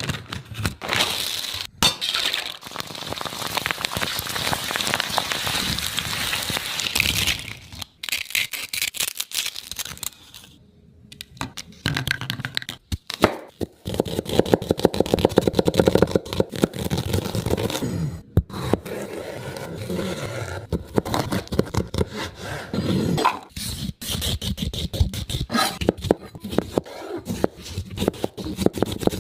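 Crisp chaat ingredients being cracked, crunched and mixed: a run of sharp cracks and crackling, with scraping and clinking against a bowl.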